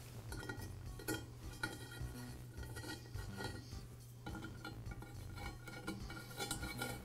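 Faint, scattered small metallic clicks and clinks of a hex key and set screw being handled and worked into the cast post of a tile saw, over a steady low hum.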